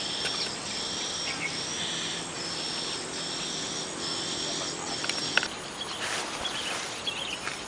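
An insect calling in seven even, high-pitched calls in a row, about one a second, stopping about five and a half seconds in.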